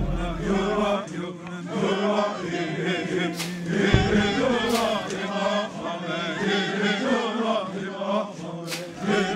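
A group of voices, men's voices prominent, chanting together in unison over a steady held low note, the song of a circle dance.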